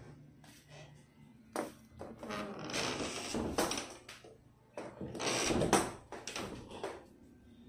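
Blanket and clothing rustling with bumps and knocks from the phone being handled as the person gets up and moves about, in a few noisy bursts, the loudest about five to six seconds in.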